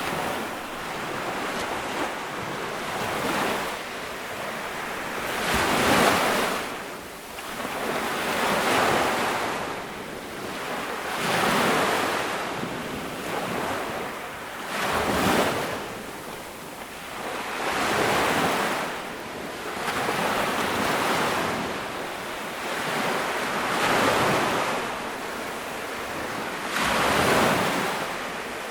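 Ocean waves breaking on a beach, the surf swelling and washing back about every three seconds.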